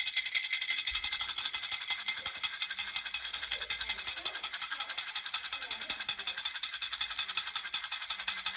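Baby rattle shaken quickly and steadily, a fast, even stream of bright rattling strokes with no pause.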